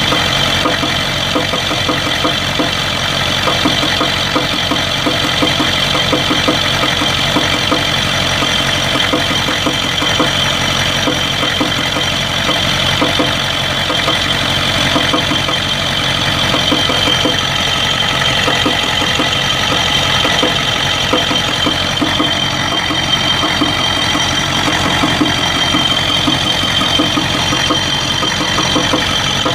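1992 Ford 7.3 IDI V8 diesel idling with a steady diesel knock, a thin high whine running over it. This is the engine that misfires at random at idle with blowby and an injector-like knock, a fault traced on teardown to broken second compression rings on two pistons and a bad valve guide.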